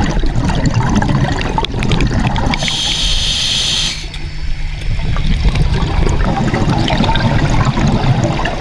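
Underwater sound of scuba diving: bubbles from the divers' exhaled breath rumbling and gurgling, with a brief high hiss of regulator breathing about three seconds in.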